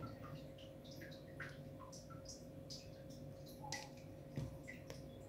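Faint handling sounds of a plastic airsoft pistol slide and a cutter: scattered small clicks and two soft knocks, one right at the start and one about four seconds in, over a faint steady hum.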